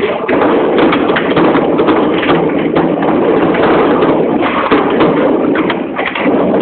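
Foosball table in play: the ball and plastic figures clacking and the rods knocking in quick, irregular strikes, over a steady background din.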